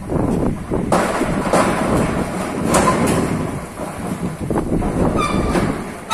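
Steel folding shop door with no top rail being pushed along by hand: its panels rumble and rattle as they roll, with several metal knocks and a short squeak about five seconds in.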